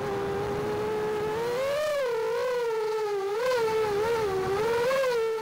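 A 5-inch FPV quadcopter's Emax Eco 2306 motors and propellers whining, the pitch rising and falling repeatedly with the throttle.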